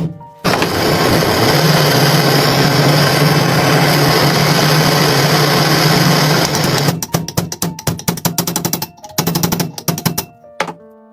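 A motor-driven tool runs steadily for about six seconds and then stops, followed by a run of quick clicks and taps on metal parts.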